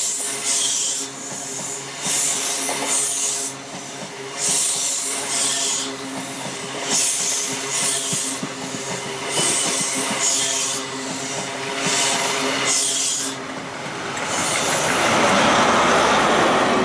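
InterCity 125 HST passing through the station: its Mark 3 coaches rush by with a rhythmic clatter of wheels on rail, surging about once a second. Near the end the rear Class 43 power car goes past, its diesel engine adding a louder, fuller roar.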